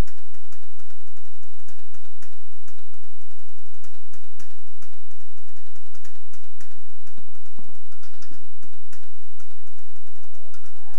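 Many quick, irregular light taps and clicks from a junk-percussion group's sticks on found objects such as plastic barrels and metal bowls.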